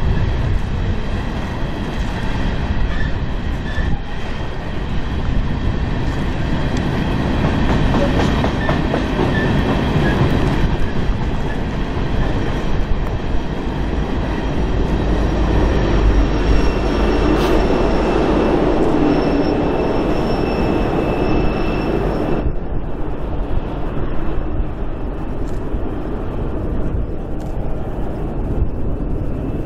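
Coal train's hopper cars rolling past on the rails: a steady rumble and clatter of wheels, with a faint high wheel squeal that stops suddenly about three-quarters of the way through.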